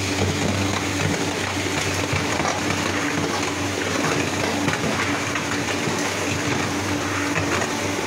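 Pan mixer of a concrete block-making machine running steadily, its blades churning through damp concrete mix, with a steady low motor hum under the grinding of the mix.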